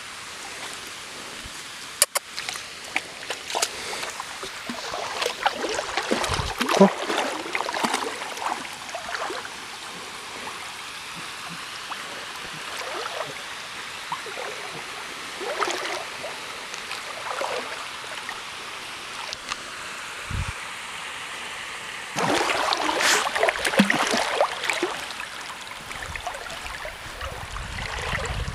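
Water splashing and sloshing as a dog swims through a shallow creek, with louder bursts of splashing a few seconds in and again about three quarters of the way through.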